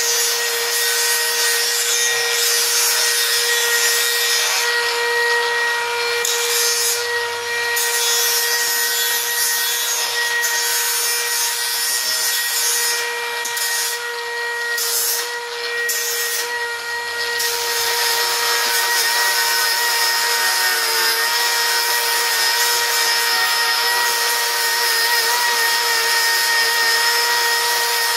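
Handheld power grinder running steadily, grinding mill scale off a quarter-inch steel plate: a steady whine over the hiss of the abrasive on the steel. The grinding hiss thins out briefly several times in the middle as the disc eases off the work.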